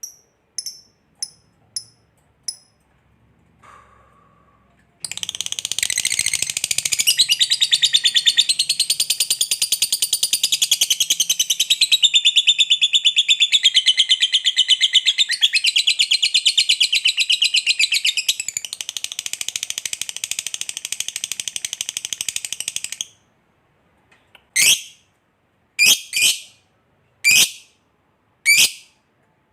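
Lovebird singing its long chatter ('ngekek panjang'): a few short high chirps, then a dense, rapid, high-pitched chattering trill that runs for about eighteen seconds and cuts off suddenly. Four single sharp high calls follow, about one every second and a half.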